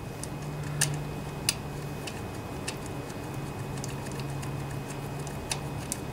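Scattered sharp metal clicks and taps from handling and fitting a bracket onto a small engine, the loudest about a second and a second and a half in, over a steady low hum.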